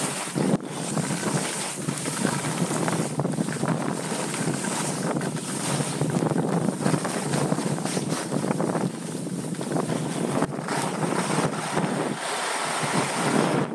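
Wind rushing over the microphone during a fast ski descent, mixed with the hiss and scrape of skis on snow. The noise is continuous and swells and dips every second or two.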